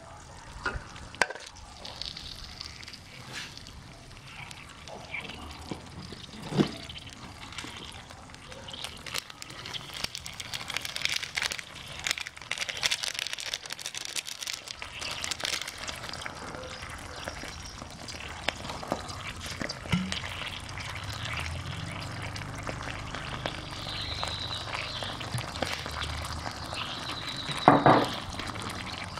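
Canned fish in tomato sauce simmering in a wok, the sauce bubbling and sizzling with a steady scatter of fine crackles. A few sharp knocks break in, the loudest near the end.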